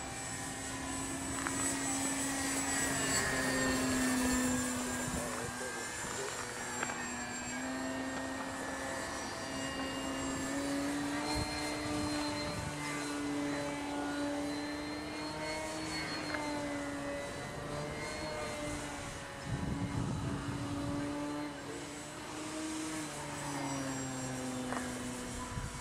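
Scratch-built RC plane's motor and propeller running in flight overhead, one steady tone whose pitch slowly rises and falls as the plane passes and the throttle changes. A short burst of low rumbling noise about twenty seconds in.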